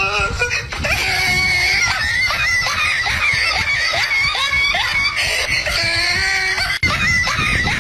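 A high-pitched screaming voice, wavering and held almost without a break.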